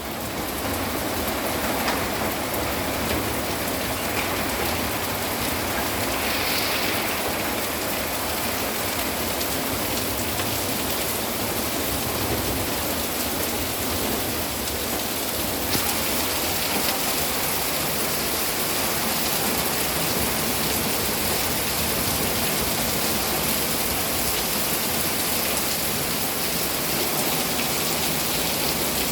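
Heavy rain pouring steadily in a storm.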